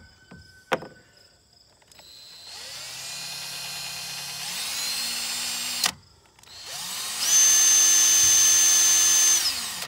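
Cordless drill boring a small pilot hole into a steel shaft that is too hard for the bit, in two runs. The first speeds up and stops suddenly about six seconds in. The second is louder, with a steady high whine, and winds down near the end.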